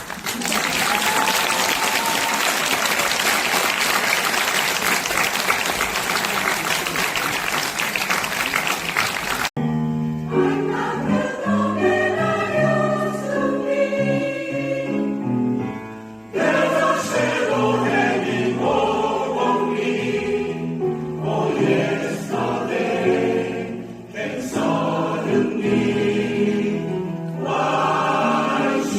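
Audience applause for about nine seconds that cuts off abruptly, then a choir singing with accompaniment.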